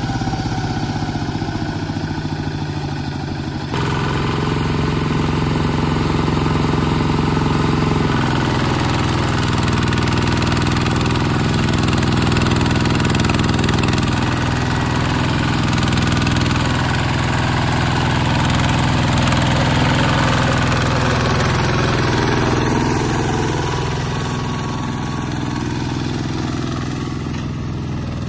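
Bulldozer engine running steadily, its note shifting abruptly about four seconds in and again about eight seconds in.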